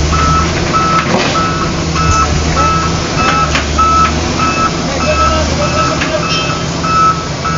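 Reversing alarm of a heavy construction vehicle beeping steadily at one pitch, about two beeps a second, over the low rumble of its diesel engine running.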